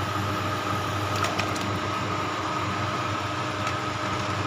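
Chicken broth boiling in a stainless steel pot under a steady hum, with a few light clicks a little over a second in as tofu cubes are tipped from a bowl into the pot.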